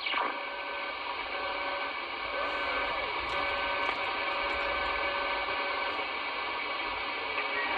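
Midland Alan 9001 CB radio receiving single sideband on the 11-metre band at 27.555 MHz, its speaker giving a steady static hiss with faint whistling tones: an open channel between transmissions.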